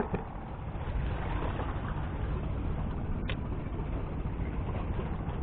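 Steady low outdoor rumble at the open sea, with one short click a little over three seconds in.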